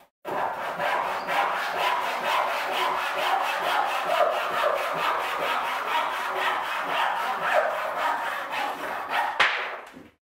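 Hand saw cutting through a wooden board with a steady run of quick, even strokes, stopping near the end.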